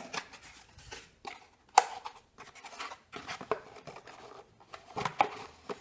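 Small cardboard box being handled and its top flap pulled open: a string of scrapes, rustles and sharp taps, the sharpest about two seconds in and a cluster near the end.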